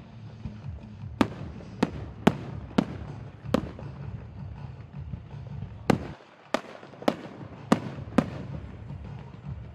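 Aerial fireworks shells bursting with sharp bangs, about ten in all: five in quick succession in the first few seconds, a short lull, then five more. A steady low rumble runs underneath.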